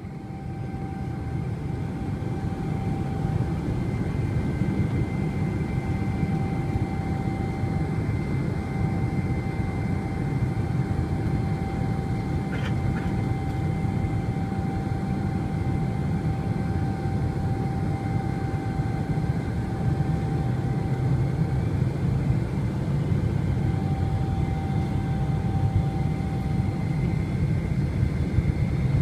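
Cabin noise inside a Boeing 747-400 at the start of its takeoff: a steady low rumble from its Rolls-Royce RB211 engines with a thin steady whine over it, slowly growing louder.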